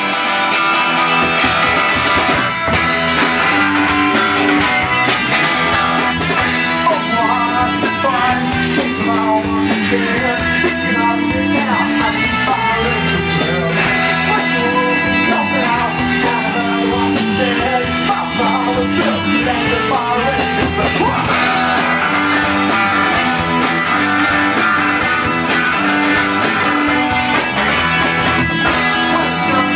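A rock band playing live: guitars over a bass guitar line, loud and steady throughout.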